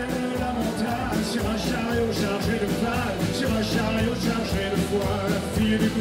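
A rock band playing live, drums and all, with a man singing lead into a microphone.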